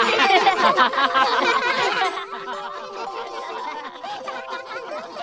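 A group of cartoon voices laughing together, loud for about the first two seconds and then quieter, with a few soft held notes under the quieter part.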